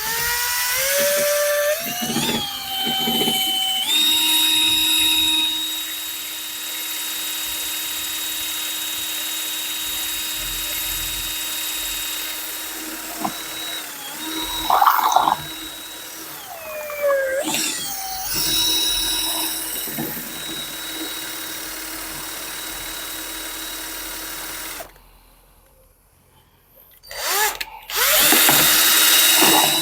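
Electric drill mixing epoxy resin. The motor whine rises as it spins up and then runs steadily, with the speed dipping and picking up again around the middle. It stops about 25 seconds in and starts again about two seconds later.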